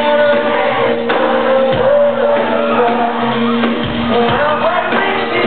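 Live band playing in a large hall, with the male lead singer singing into a handheld microphone and the crowd shouting along, recorded from among the audience.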